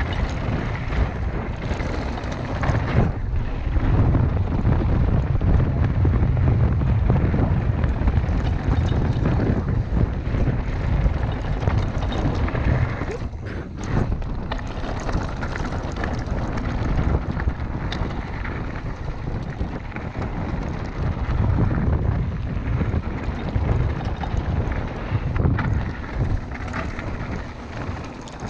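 Wind buffeting the microphone over the steady noise of a Specialized Kenevo mountain bike descending gravel and dirt trail: knobby tyres rolling on loose stones and the frame and drivetrain rattling. The noise briefly drops about halfway through.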